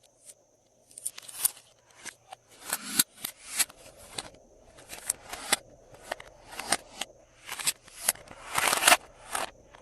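Glossy slime being pressed and stretched by hand close to the microphone, giving a run of short sticky clicks and squishes about twice a second, starting about a second in. A faint steady high-pitched tone runs underneath.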